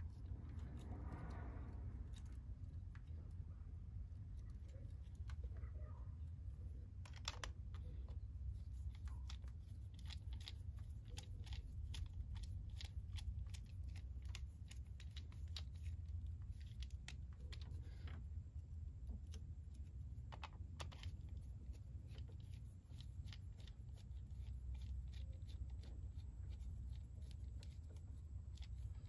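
Faint scattered clicks and small scrapes of hands fitting wires into a two-pole circuit breaker and working its terminals with a small hand tool, over a steady low rumble.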